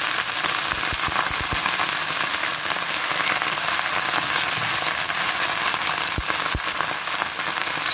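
Hot oil sizzling and crackling steadily in a kadhai under a heap of fresh raaz rani saag greens just added over fried onion, garlic and ginger. A few low thumps come in the first second or so and twice around six seconds in.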